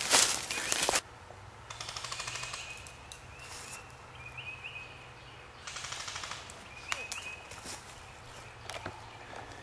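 Faint full-auto airsoft gunfire: two bursts of rapid, evenly spaced shots, the first about a second and a half in lasting about two seconds, the second just past the middle lasting about a second. In the first second, louder footsteps crunching through dry leaves.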